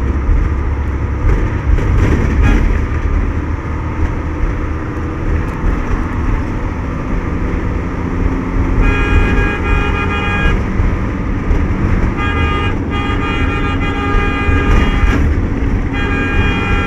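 Steady engine and road rumble inside a large vehicle's cab, with the vehicle's horn sounding in four blasts of one to two seconds each from about halfway through.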